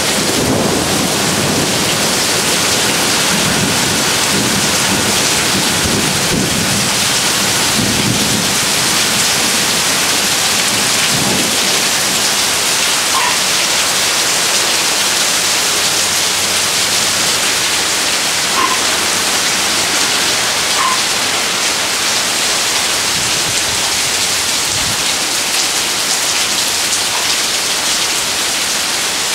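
Heavy thunderstorm rain pouring down, a steady dense hiss, with low rolling rumbles of thunder in the first half.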